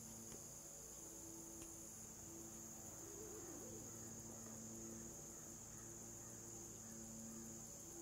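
Faint, steady high-pitched drone of an insect chorus, crickets or similar, in a grassy field.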